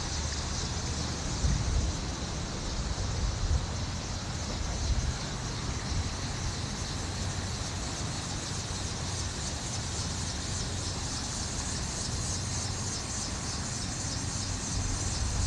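Steady outdoor background noise with a constant high hiss, and gusts of wind buffeting the microphone now and then.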